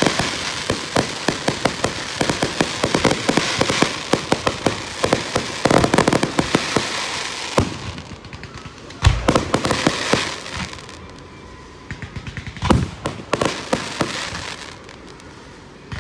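Fireworks bursting: a dense run of rapid crackling and popping, then one heavy, deep boom about nine seconds in, followed by sparser crackles and a few separate bangs.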